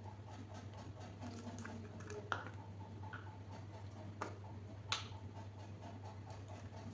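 Small plastic toy kitchen pieces being handled: light tapping and three sharp clicks, about two, four and five seconds in, over a steady low hum.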